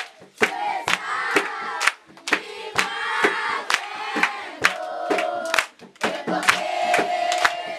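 A group of voices singing or chanting together, with some long held notes, over rhythmic hand clapping.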